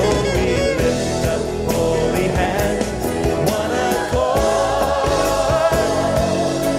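Gospel worship song playing: singing over instrumental backing, with a long held note through the second half.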